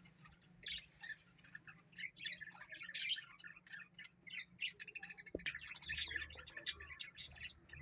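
Pet parrot chirping in many short, quick calls, a rapid run of twittering chatter.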